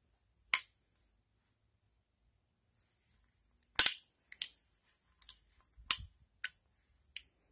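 Sharp metallic clicks and clinks of a piston, wrist pin and connecting rod on a YD85cc crankshaft being handled and fitted together: about six clicks, the loudest about four seconds in, with light rustling between them.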